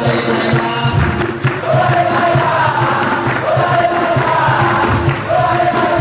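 Capoeira roda music: a group sings in chorus over the berimbau and a pandeiro (tambourine) keeping a steady rhythm, the sung phrases coming back every second or so.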